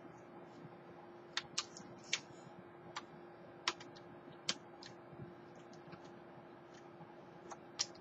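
Scattered sharp plastic clicks and taps, about eight, irregularly spaced, from hands working on an opened-up laptop's case and keyboard deck, over a faint steady hum.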